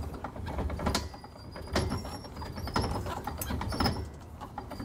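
Roof-lift hand crank of a Forest River Flagstaff pop-up camper being turned to lower the roof, with knocks and creaks of the lift mechanism and frame, roughly one a second.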